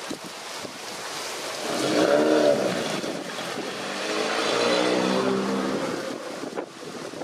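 Motor vehicles passing, with wind on the microphone. The first engine note swells about two seconds in and bends in pitch as it goes by. A second engine holds a steady note from about four to six seconds in.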